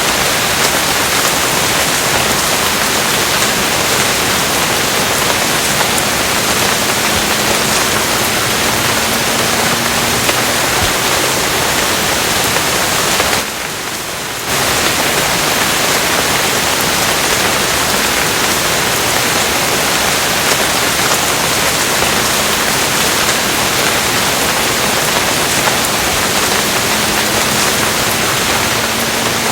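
Steady heavy rain, an even hiss with no distinct drops standing out. It dips briefly for about a second near the middle, then resumes as before.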